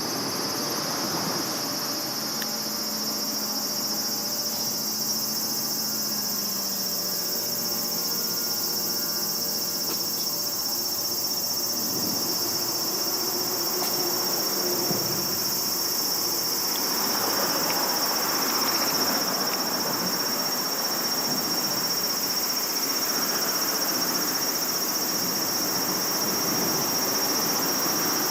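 Steady, high-pitched chorus of insects droning without a break, over a low background rumble that swells somewhat in the second half.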